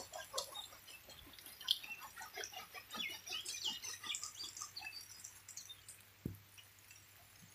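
Faint bird calls: many short chirps and clucks scattered through the first five seconds, thinning out after that, with a single low thump about six seconds in.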